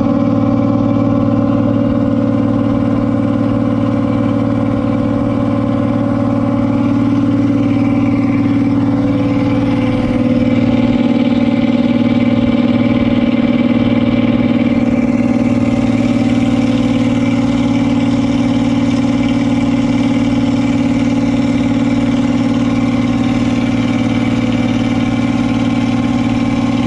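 The engine of a river passenger boat running steadily under way, a continuous low drone whose note shifts slightly about ten seconds in.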